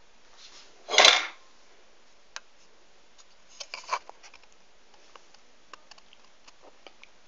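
Crockery and a spoon being handled on a kitchen counter: one loud knock about a second in, then a few light clinks and taps.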